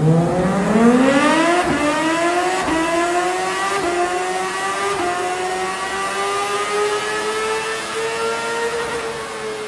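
CFMOTO 500SR motorcycle engine and exhaust accelerating hard. The pitch climbs steeply for the first two seconds, keeps rising slowly after that, and eases off near the end.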